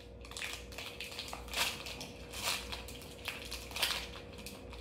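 Pokémon trading cards being handled and slid against one another in the hands: soft papery swishes and rustles, three of them louder.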